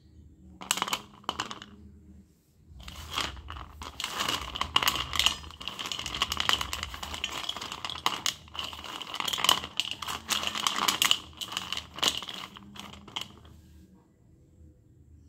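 Slate pencils being stirred by hand in a metal plate, clicking and clattering against each other and the plate. A short burst comes about a second in, then continuous clattering and rustling from about three seconds in, which stops near the end.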